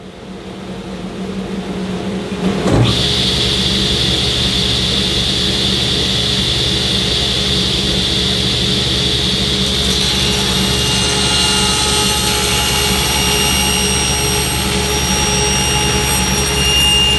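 Table saw running with no cut, the blade spinning freely. The sound swells over the first few seconds, a sharp knock comes about three seconds in, and then it settles into a steady run with a hum and a high whine.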